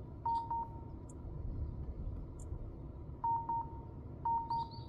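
Electronic warning beeps at one pitch, each a quick triple pulse running into a short held tone, heard three times: about a quarter second in, then twice about a second apart near the end.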